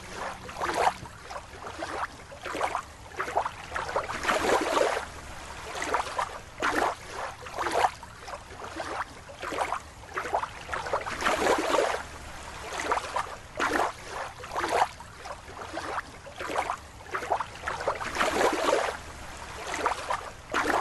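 Water sloshing and bubbling, with irregular small splashes and gurgles.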